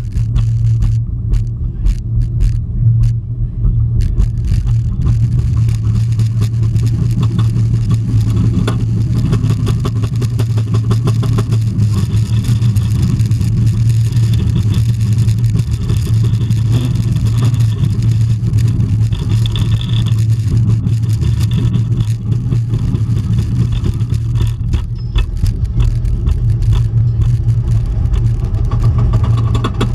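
Roller coaster train on a hybrid wood-and-steel track rolling along its course, a steady low rumble that holds all the way through.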